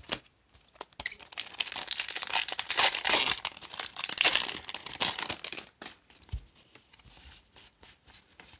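A Magic: The Gathering booster pack's foil wrapper being torn open and crinkled, a dense crackling for a few seconds in the middle, then trailing off into light rustles and taps.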